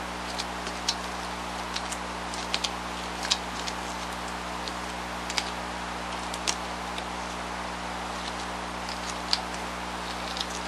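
Scattered small clicks and ticks from gloved hands pressing and peeling spray-glued foam leg pieces, the gloves sticking to the tacky glue, over a steady hum and hiss.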